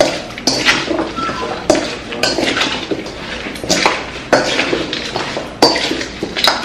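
Utensil clinking and scraping against a dish as seasoning is mixed into raw chicken: irregular sharp clinks, roughly every half second to a second, with a faint ring.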